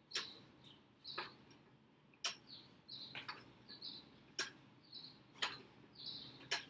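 Short sharp hissing exhales, about one a second, keeping time with one-arm kettlebell snatch reps.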